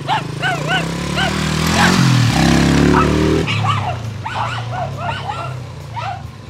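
A Honda XL175 dirt bike's single-cylinder four-stroke engine pulls away, revving up for about a second and a half around the middle before dropping back. Several dogs bark repeatedly around it throughout.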